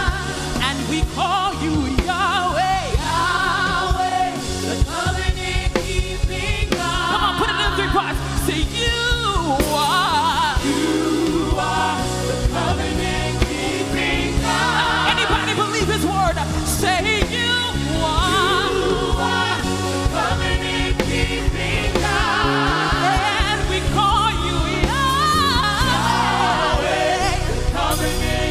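Live gospel worship music: a choir and lead singers sing with vibrato and gliding vocal runs over a full band with a steady bass.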